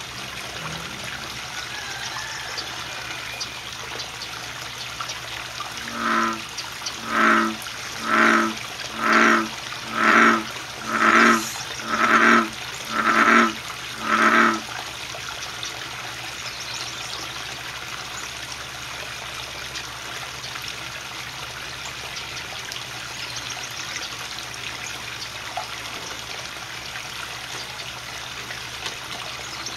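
Male American bullfrog calling: a run of nine croaks about a second apart, beginning about six seconds in and stopping about halfway through. This is the advertisement call a male gives to attract females. A steady trickle of water runs underneath.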